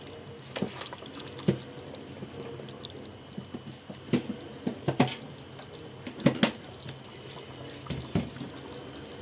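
Thick tamarind gravy of bitter gourd coming to the boil in a stainless steel pot, bubbling with scattered pops as bubbles burst at the surface, over a steady low hiss. A ladle stirs through it at the start.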